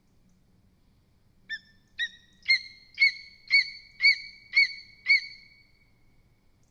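Lesser spotted eagle calling: a series of eight high, sharp yelps about two a second, starting about a second and a half in and growing louder over the first few calls.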